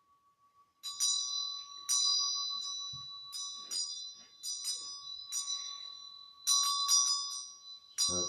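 A small high-pitched bell struck repeatedly in uneven strokes, about a dozen times, each strike ringing on. A steady lower ringing tone holds underneath. A dull knock comes near the end.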